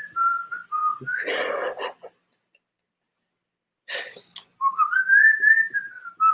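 A man whistling: a few short notes, a brief burst of noise, a pause, then one long whistled note that rises and falls away near the end.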